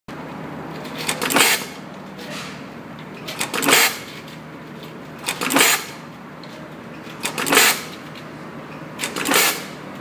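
Automatic wire-stripping and ferrule-crimping machine cycling five times, about every two seconds: each cycle is a few quick clicks followed by a short hissing snap as it strips and crimps a wire end. A steady low hum runs underneath.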